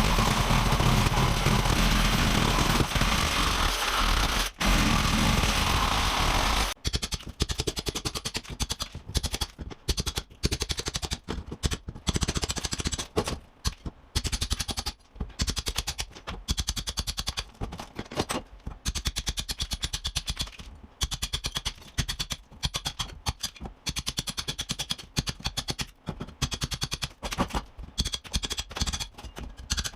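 Electric chipping hammer chiselling glued ceramic tile off a brick chimney wall. It runs without a break for about the first seven seconds, then in short, rapid stop-start bursts of impacts.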